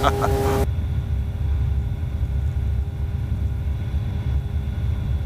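Evektor SportStar's Rotax 912 flat-four engine and propeller droning steadily in cruise, heard inside the cabin as a low drone with a faint steady hum above it. A hiss in the upper range cuts off suddenly under a second in.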